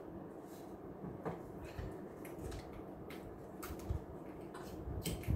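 Faint scattered clicks and light knocks of a small container being handled on a glass tabletop, with a few slightly sharper taps.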